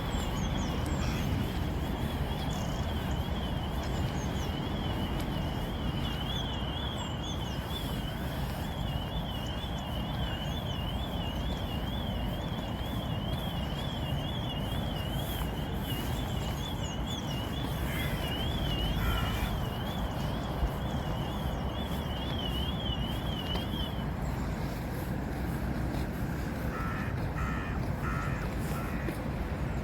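Outdoor ambience: a steady low rumble of wind or distant traffic under a high, rapidly warbling trill that stops about four-fifths of the way through. A few short bird chirps come near the middle and again near the end.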